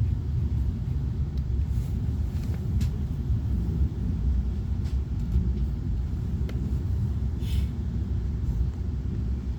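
Steady low rumble of a train in motion, with a few faint clicks and a brief hiss about seven and a half seconds in.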